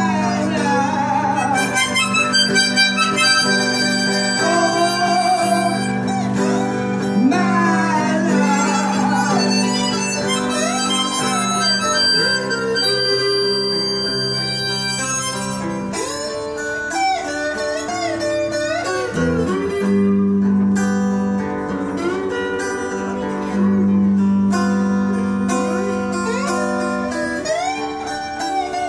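Harmonica playing a solo of held and bending notes, over two acoustic guitars playing chords.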